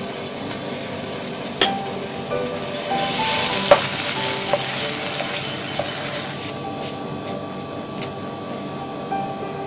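A spoon stirring thick chutney paste, with a few sharp clinks against the dish, and a sizzle in the middle of the clip as paste is stirred in a hot pan.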